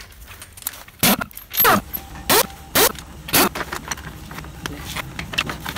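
Cordless impact wrench fired in about five short bursts, its motor whirring up and down and rattling as it loosens the bolts of the motorcycle's crash cage, followed by a few light clicks of metal parts being handled.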